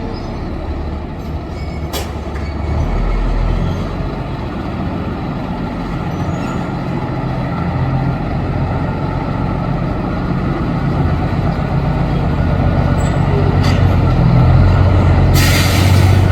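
Heavy diesel truck engine running steadily with a low hum, slowly getting louder. Near the end comes a brief sharp hiss of compressed air.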